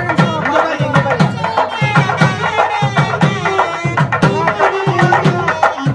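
Music with a steady drum beat under a wavering melody line.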